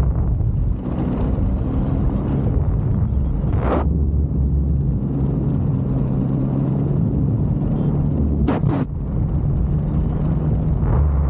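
Paramotor engine and propeller running steadily in flight, a constant low drone with wind rushing over the microphone, and two short whooshes about four and eight and a half seconds in.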